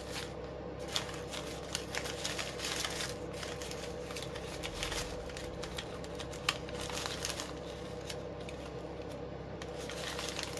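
Poly ribbon loops crinkling and rustling in the hands as they are pulled and fluffed into a bow, with many small irregular crackles and clicks.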